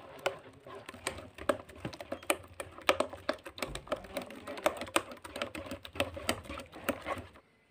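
A hand beating thick rice and urad dal dosa batter in a metal bowl, making quick wet slaps and squelches about four times a second. The sound stops abruptly near the end.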